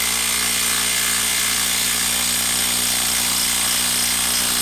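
Kobalt 24-volt brushless impact driver hammering steadily as it drives a 4.5-inch lag screw into a wooden log.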